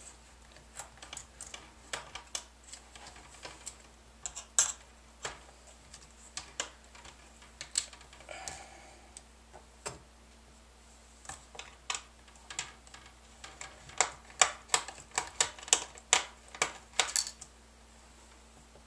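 Small, irregular clicks and ticks of a precision Phillips screwdriver and fingers working the hard plastic screen bezel of a Lenovo V570 laptop as the two bezel screws are taken out. The clicks come thicker near the end.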